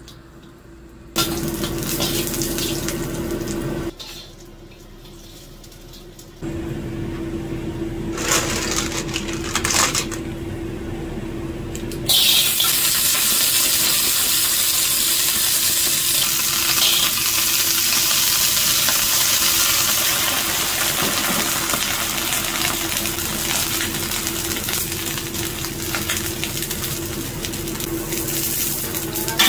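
Cooking at a wok: ginger slices sizzling briefly in hot oil, clamshells clinking against each other, then from about twelve seconds in a steady loud hiss of water and sizzling as the clams cook. A low steady hum sits underneath.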